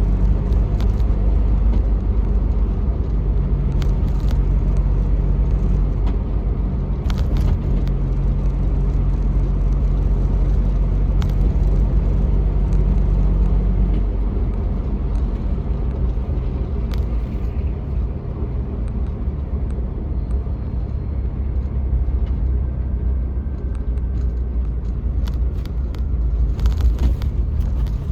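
1999 Jeep Wrangler TJ driving: steady engine and road rumble, with the engine note changing about halfway through and a few light clicks or rattles. No knocking from the rear end, its lower control arm bolt back in place.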